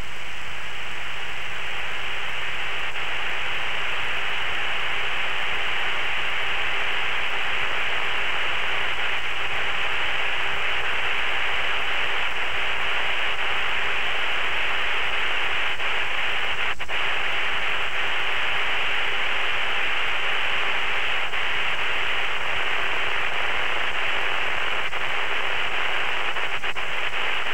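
Steady, even static hiss on a narrow radio-type audio channel, with no voice transmitting.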